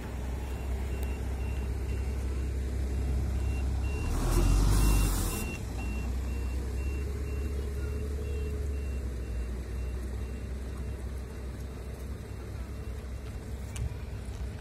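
City bus diesel engine idling steadily. A high electronic warning beep sounds about twice a second, typical of the bus's door signal. About four seconds in there is a loud hiss of compressed air lasting about a second and a half, from the pneumatic door or brake system.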